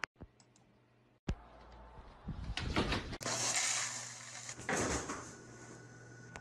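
A single mouse click, then dry cereal poured from a box into a bowl, a dense rattling patter of flakes lasting a couple of seconds and dying out about five seconds in.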